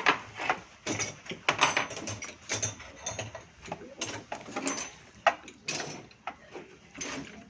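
Irregular clinks, knocks and scrapes of hand tools on metal engine parts, working at a seized screw that won't come loose.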